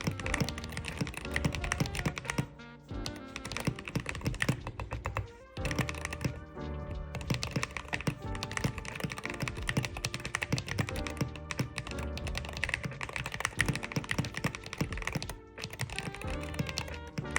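Typing on a Wooting 60HE keyboard fitted with a polycarbonate switch plate, silicone between plate and board, and Gateron Jade switches: a fast run of key presses, with a few brief pauses. Background music plays underneath.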